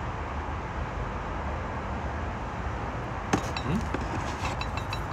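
Steady low room hum, with one sharp tap about three seconds in and a few faint light clicks after it.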